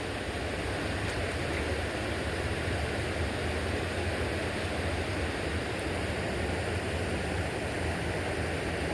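Steady rushing noise of flowing river water, with a faint low steady hum underneath.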